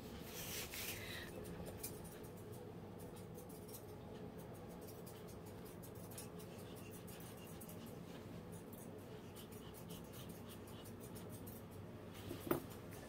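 Faint scratching and rubbing as a Yorkshire terrier's ear and fur are handled and a metal ear-cleaning tool works inside the ear, over a steady low hum. A single sharp click comes near the end.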